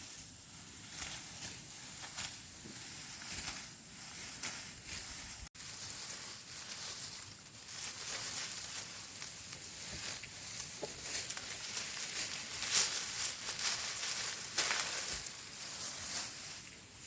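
Continuous dry rustling with frequent crisp crackles, like dry rice stalks or straw being handled or cut.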